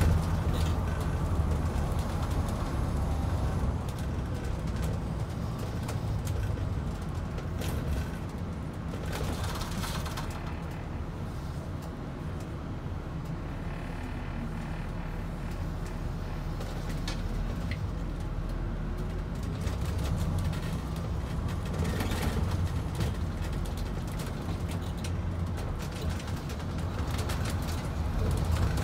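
2021 MCI D4500CT commuter coach's diesel engine and road noise, heard from the front seat inside the cabin: a steady low hum that eases off as the coach slows in traffic around the middle and picks up again later, with a couple of brief rattles.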